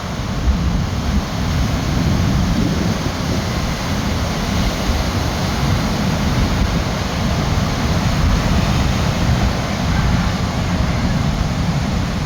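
Surf breaking and rushing on the beach under heavy wind noise on the microphone, a loud steady rumble with no engine tone.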